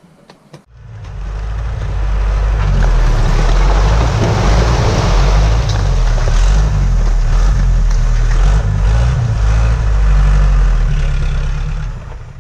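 Tipper truck engine running while the raised bed tips out a load of broken aerated-concrete blocks: a long steady rush of sliding, tumbling rubble over the engine's low running. It starts about half a second in, builds over a second and fades out near the end.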